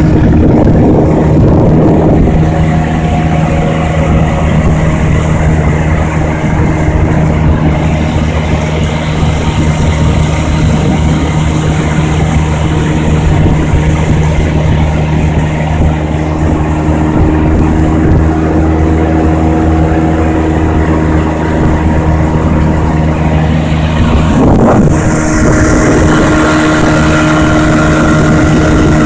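Evinrude outboard motor running steadily at cruising speed, pushing a small boat, with the rush of water and wind over it. Near the end the engine note wavers briefly and the hiss of water and spray grows louder.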